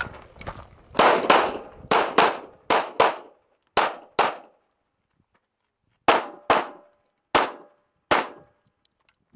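Glock 35 pistol in .40 S&W fired rapidly, about twelve shots, mostly in quick pairs. After the eighth shot there is a pause of about a second and a half, then four more shots, the last two spaced apart.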